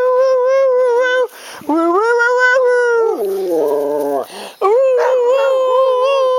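Dog howling along in long, drawn-out, wavering notes that break off twice. Between them, a lower voice slides downward for about a second.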